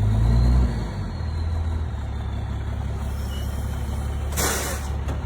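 Pickup truck engine running steadily at low revs, easing off about a second in after pulling a heavy log free. A short rushing noise comes near the end.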